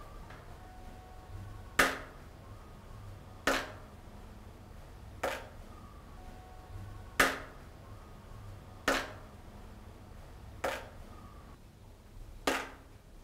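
Water dripping at a slow, even rate, about one drop every 1.8 seconds, each drop a sharp plink that rings on briefly in the bare room.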